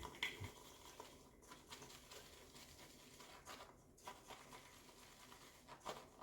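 Faint swishing of a shaving brush whipping soap into lather in a lather bowl, with a few light clicks of the brush against the bowl.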